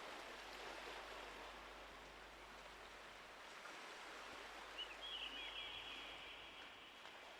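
Faint steady wash of water, with a bird calling about five seconds in: a few quick high chirps, then a steady trill lasting about two seconds.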